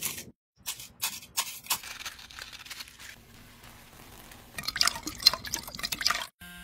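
Water being poured into a glass, splashing and dripping, loudest in the last couple of seconds; before it, a few crisp crackles of dried seaweed being handled and the soft rustle of powder shaken through a fine metal sieve.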